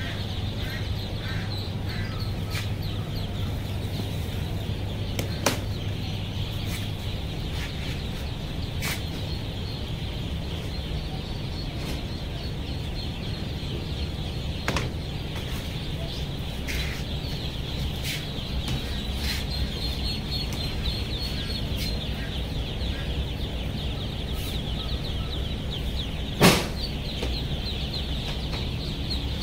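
A large crowd of Indian Runner ducklings peeping together, a dense continuous chorus of high cheeps. A few sharp knocks cut through it, the loudest near the end.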